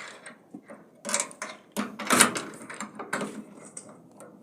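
A door being shut and locked: a run of clicks, knocks and rattling scrapes from the door and its lock, loudest in the middle.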